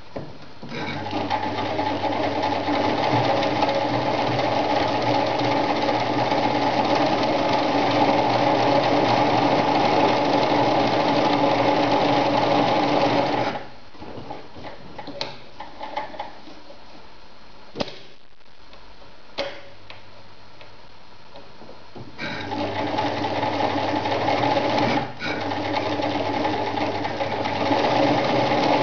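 Victoria Nutzstich ZZ-580 electric sewing machine stitching through denim, running at a steady speed. It stops after about 13 seconds, with a few light clicks as the machine is handled, then starts again about 22 seconds in, dipping briefly a few seconds later before running on.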